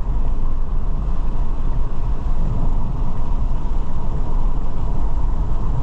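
A car driving on the road, heard from inside the cabin: a steady low rumble of road, engine and wind noise.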